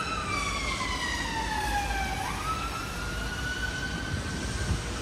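Emergency vehicle siren wailing: a single tone that slides slowly down for about two seconds, sweeps quickly back up, holds, then fades away near the end, over a low rumble of city traffic.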